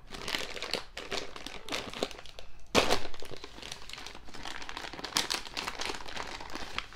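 Wrapper of a Dove dark chocolate crinkling as it is handled and unwrapped: rapid crackles throughout, with one louder crackle about three seconds in.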